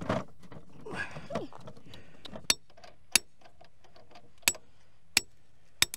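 Sharp metallic clinks of metal striking metal, about five of them at uneven spacing starting about two and a half seconds in, each short with a bright ring.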